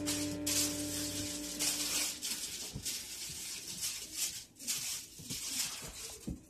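Music with long held notes fades out about two seconds in. It is followed by a run of short hissing, rustling noises and a few light knocks.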